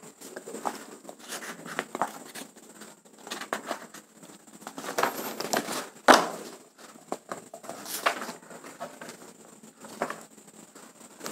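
Papers being handled: rustling and crinkling with scattered light clicks and knocks, the sharpest about six seconds in.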